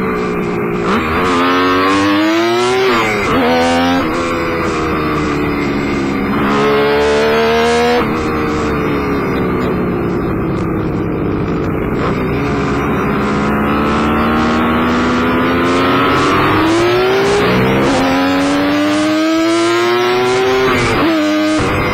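Kawasaki KH-500's two-stroke inline-triple engine heard on board under hard riding, its pitch climbing under throttle and dropping back again several times. It revs up in the first few seconds, eases off for a long spell in the middle, then climbs again near the end.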